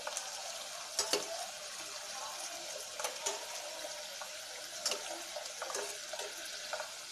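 Bitter gourd rings deep-frying in hot oil in a steel kadai, a steady sizzle, with a few clinks of a perforated steel ladle against the pan about a second in and again near five seconds.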